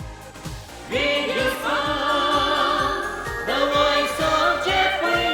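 Music with a steady drum beat; a melody comes in louder about a second in.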